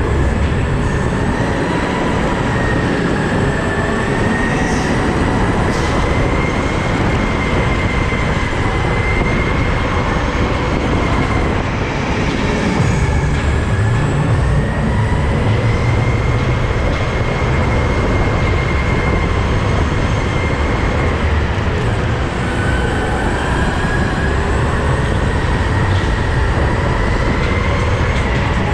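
Go-kart running at speed on a track: a steady loud noise over a low rumble, with a high whine that sinks and climbs back about three times as the kart slows and speeds up.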